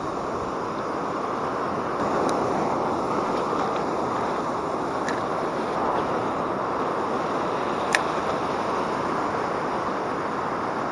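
Surf breaking and washing around the shallows, with wind buffeting the microphone; a single sharp click about eight seconds in.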